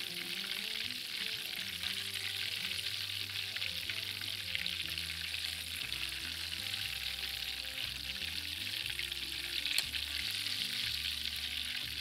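Breaded lamb rib chops frying in hot oil in a frying pan, giving a steady sizzle with one sharp click about ten seconds in.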